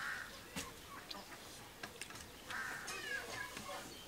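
Chickens clucking, twice, at the start and again about two and a half seconds in, with scattered small clicks and smacks of eating by hand.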